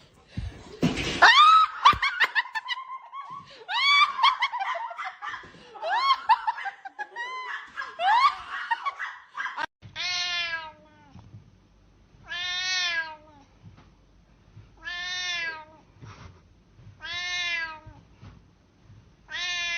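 A domestic cat meowing: first a run of shorter cries that slide up in pitch, then long drawn-out meows, each about a second long, repeated evenly about every two and a half seconds.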